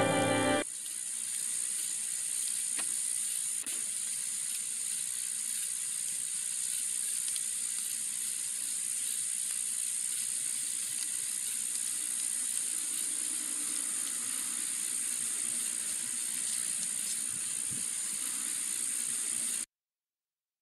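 Music ends in the first second, then a steady high-pitched hiss runs with a few faint clicks. It cuts off abruptly just before the end.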